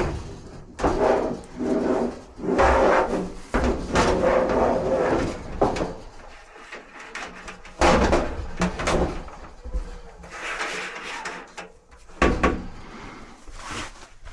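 Dryer parts being handled during a repair: irregular clunks and knocks, with a few seconds of scraping and rubbing near the middle and a sharp knock near the end.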